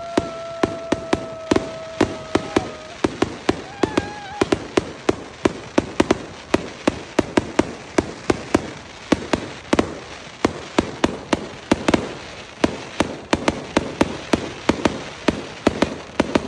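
Fireworks going off in quick, irregular succession: sharp pops and bangs, several a second. A thin whistling tone, falling slightly in pitch, carries through the first three seconds and then stops.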